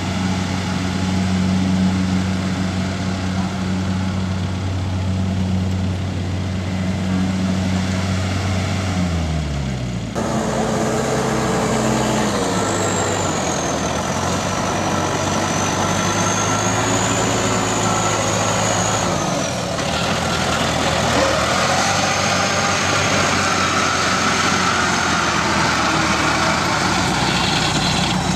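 Kubota DC-70 Plus combine harvester's engine running steadily, its pitch dropping about nine seconds in. The sound then changes abruptly to a busier machine noise with a faint high whine.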